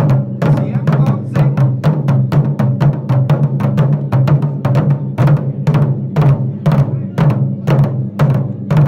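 Music with a fast, steady percussion beat over a sustained low drone.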